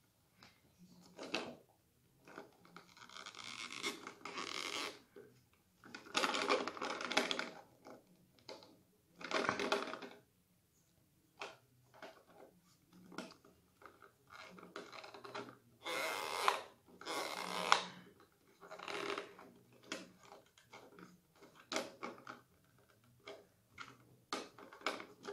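A brush-pen box being opened by hand: rustling and tearing of its packaging in irregular bursts of a second or two, with small clicks and taps between.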